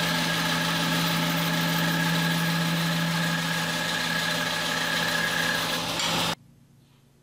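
Band saw running steadily with a strong low hum while a hardwood board on a wedge-cutting sled is fed into the blade; the sound cuts off abruptly about six seconds in.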